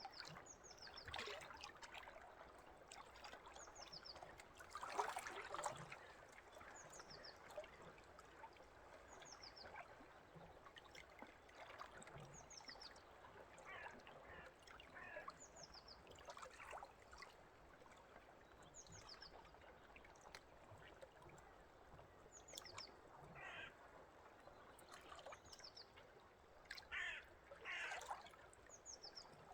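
Nature ambience, faint overall: small birds give short, high, falling chirps every second or so, with a few louder, harsher calls about five seconds in and near the end. Under them runs a steady trickle of running water.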